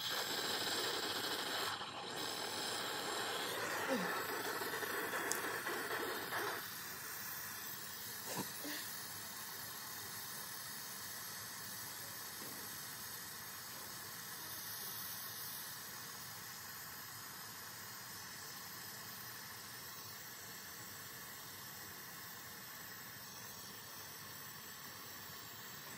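Steady hissing noise, louder and fuller for about the first six and a half seconds, then settling to a quieter, even hiss.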